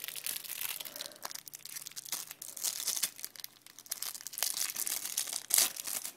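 Clear plastic wrapper of a small trading-card pack crinkling and tearing as fingers pull it open, a busy run of small crackles with one sharper crackle near the end.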